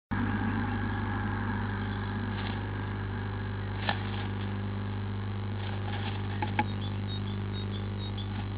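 Steady electrical hum from a nest-box camera's microphone. Over it come a few sharp clicks and scratches as a blue tit shifts in its nest of grass and feathers: one about four seconds in, and two close together about six and a half seconds in.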